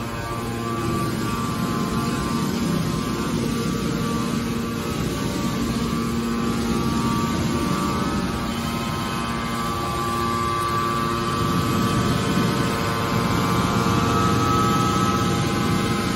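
The hydraulic power unit of a large scrap metal baling press running steadily: the electric motor and pump give a continuous hum with several held tones.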